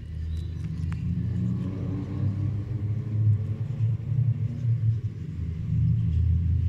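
A loud, continuous low rumble.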